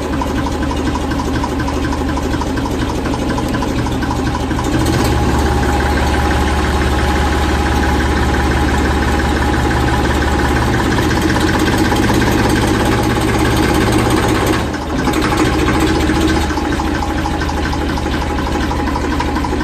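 Farm tractor engine running under throttle while the tractor is driven in reverse. It gets louder about five seconds in, eases off briefly near the three-quarter mark, then settles a little lower.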